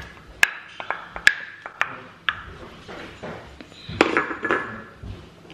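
Wooden spoon scraping and knocking sweetcorn out of a ceramic bowl into a frying pan: several sharp knocks with a short ring in the first two and a half seconds, then a louder clatter about four seconds in.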